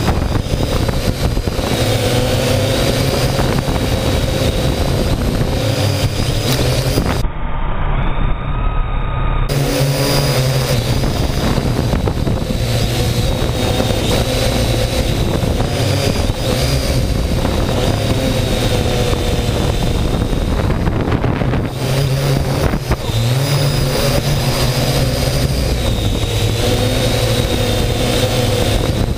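Quadcopter drone's electric motors and propellers whirring steadily, heard from a camera hung beneath it, the whine wavering up and down in pitch as the throttle changes.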